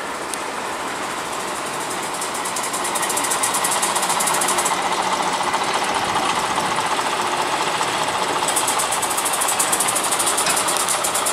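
Class 07 diesel shunter's engine running as the locomotive moves along the yard: a steady drone with a fast, even knocking clatter. It grows louder over the first few seconds, and the clatter sharpens near the end.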